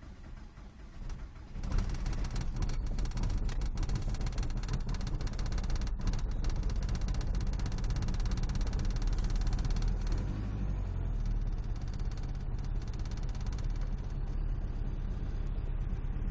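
Seat Toledo 1.9 TDI four-cylinder turbodiesel starting from cold at −16 °C: it catches about two seconds in and then runs at a steady idle near 1000 rpm, heard from inside the cabin.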